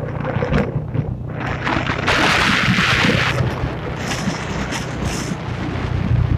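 Motorbike engine running while riding, under heavy wind buffeting on the microphone, with scattered knocks. A loud hiss starts about two seconds in and lasts about a second.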